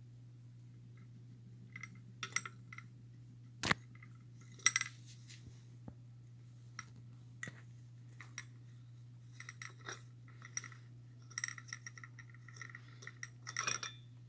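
Small metal parts clinking and tapping irregularly, some with a brief ringing tone, with two sharper knocks about four and five seconds in, over a steady low hum.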